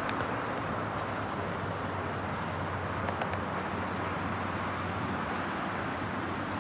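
Distant traffic: a steady, even hiss with a low hum underneath.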